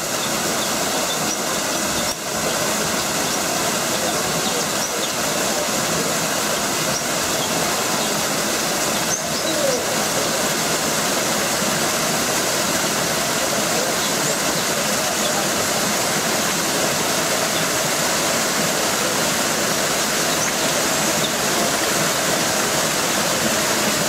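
Shallow stream running fast over rocks, a steady rushing of water, with a few faint high chirps now and then.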